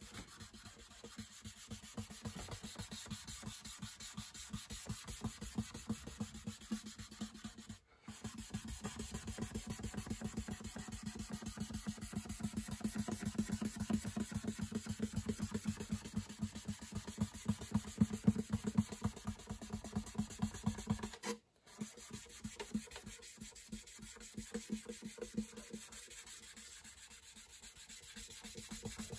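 Cloth pad rubbing alcohol-based dye into an acoustic guitar's wooden top in quick, steady back-and-forth strokes. The sound cuts out briefly twice.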